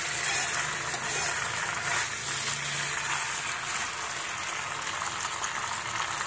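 Steady hiss of pasta cooking in a steel kadai on a gas stove while a spatula stirs it.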